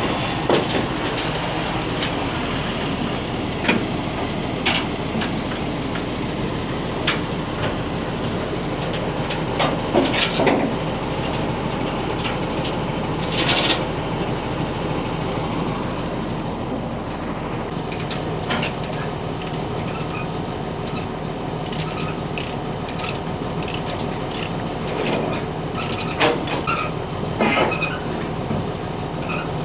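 Heavy construction machinery running steadily, with scattered sharp metallic clanks and knocks, more frequent in the second half.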